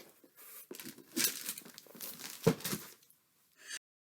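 Paper or packaging crinkling and rustling as it is handled, in irregular bursts with a sharper knock about two and a half seconds in; the sound cuts off abruptly near the end.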